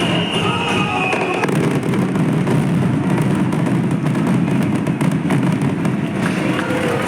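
Fireworks going off in a dense, continuous barrage of crackling bursts, with music playing underneath.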